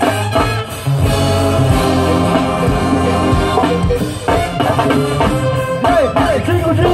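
Live go-go band playing over a PA system: drums, horns and singing voices.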